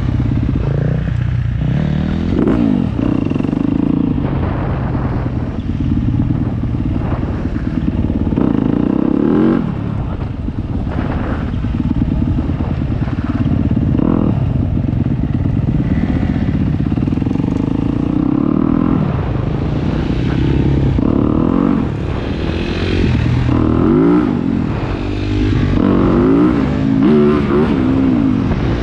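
Dirt bike engines running while under way, the revs rising and falling several times, most often in the second half.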